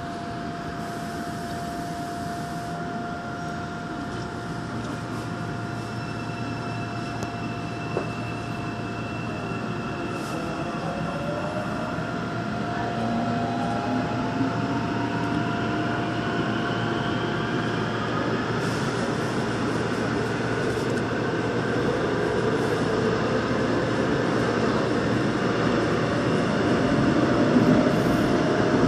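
Metro train pulling away from a station and picking up speed in a tunnel. The traction motors whine in tones that rise in pitch as the train accelerates, over a running rumble that grows steadily louder.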